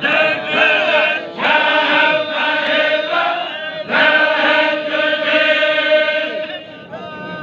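Men's voices in a Baloch chogan, a devotional chant sung together, holding long notes in two drawn-out phrases and thinning out near the end.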